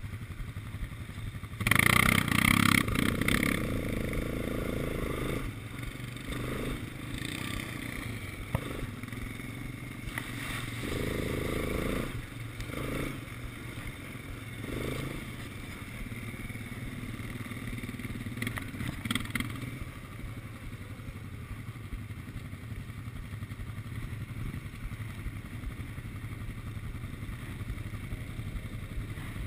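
Quad bike engine running under the rider, with a loud surge of throttle about two seconds in as it pulls away, then rising and easing off several times as it rides on.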